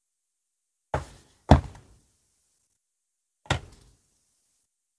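Cardboard AirPods box knocked and bumped while it is handled and its paper insert is slid out: three dull knocks, the second, half a second after the first, the loudest, and a third about two seconds later.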